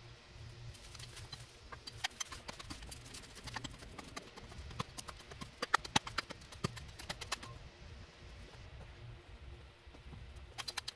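Hand digging tool chopping and scraping into rocky soil, a rapid run of sharp knocks and clicks of metal on stones and dirt. The knocks come in a busy stretch, pause, and start again near the end.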